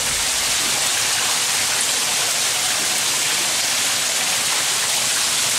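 Mineral-laden spring water running and dripping steadily down tiered wooden racks of moulds in a petrifying fountain, an even splashing with no breaks.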